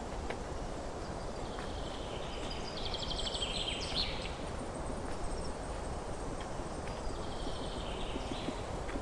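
A songbird singing rapid trilled phrases that step down in pitch, twice, over steady outdoor background noise.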